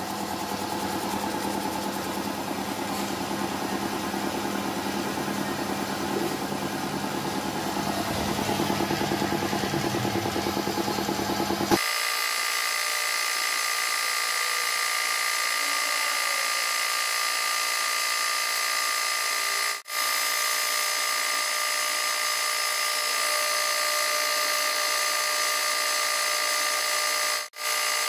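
A 1/2 hp air compressor, driven by a 1 hp electric motor, running steadily with a constant mechanical hum. About twelve seconds in, the sound changes abruptly and loses its low end, and later it breaks off for an instant twice.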